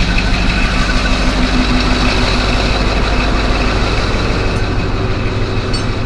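Caterpillar D11 bulldozer's diesel engine running steadily, heard from up on the machine.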